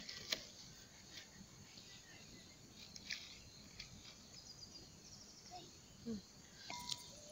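Faint open-air background with a sharp light knock just after the start and another softer one about three seconds in, as a log is pushed further into a wood fire, and a couple of brief faint calls near the end.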